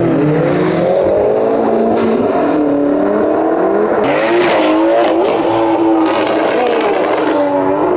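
Performance car engines revving hard and accelerating, the pitch climbing and dropping again and again.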